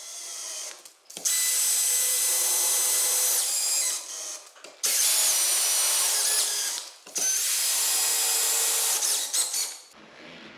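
Cordless power screwdriver driving screws into the corners of a chipboard door frame, in three runs of two to three seconds each with short pauses between.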